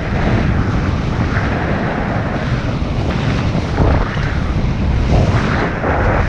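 Wind buffeting the microphone steadily, over the rush and splash of water along the hull of a Hobie 16 catamaran under sail.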